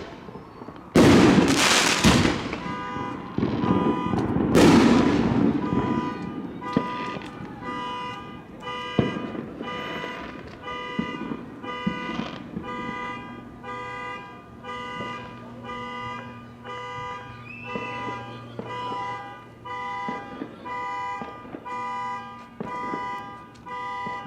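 Fireworks bursting in the first few seconds, then a car alarm sounding a repeating electronic tone about twice a second, on and on.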